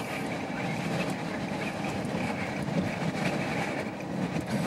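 Steady low rumble of a vehicle heard from inside its cabin, with a faint steady hum underneath.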